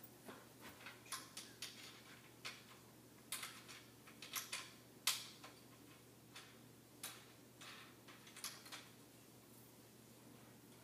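Faint, irregular clicks and taps from a backdrop stand's crossbar and poles being handled and adjusted, the loudest about five seconds in.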